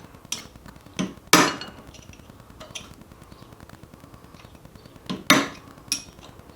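Hammer striking a punch to stake a transmission shaft nut: a handful of sharp metallic blows, one or two near the start and another group about five seconds in.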